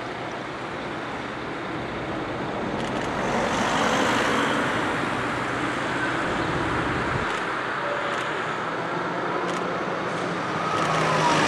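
Street traffic: cars passing on the road close by, loudest about four seconds in, while a tram comes closer along its tracks and the sound grows again near the end.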